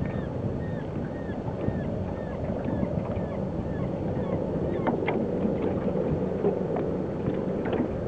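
Steady low rumble of wind on the microphone, with many short, high chirping bird calls over it, about two a second.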